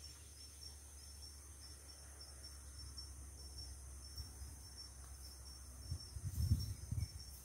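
Crickets chirping in a steady run of short, high-pitched pulses over a low rumble. A few louder low rumbling bumps come about six seconds in.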